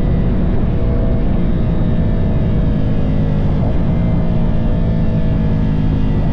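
Ducati Monster's L-twin engine running steadily, its pitch drifting slightly.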